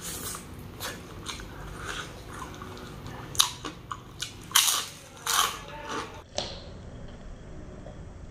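Close-up eating sounds of a man biting and chewing braised mutton adobo, with several sharp bite and mouth sounds clustered between about three and six seconds in.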